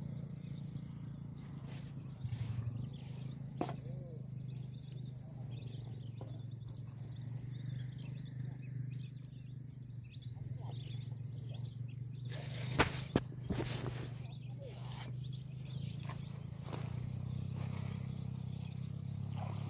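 Outdoor ambience at a grassy marsh edge: a steady low hum and a thin high-pitched steady tone, with faint scattered chirps. About two-thirds of the way through there is a burst of rustling from grass and camera handling, with two sharp knocks close together that are the loudest sounds.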